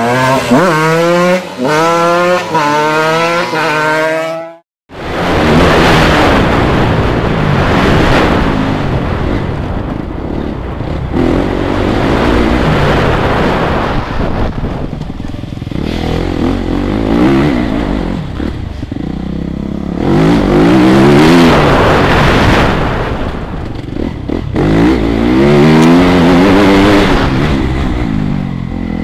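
Onboard sound of a TM MX 250 Fi motocross bike's fuel-injected four-stroke single-cylinder engine ridden hard on a dirt track: the revs climb and drop again and again as it accelerates out of turns and shifts up, with wind and track noise. The first few seconds hold a separate run of quickly repeated rising revs, which cut off into a brief silence.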